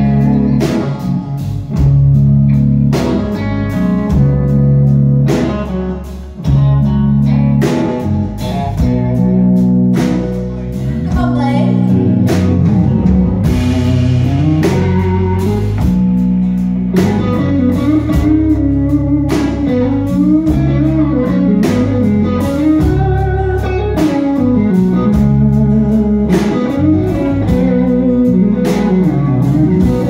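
Live band playing a slow country-blues song on acoustic and electric guitars with bass and drums. From about the middle on, a lead line bends up and down in pitch over the band.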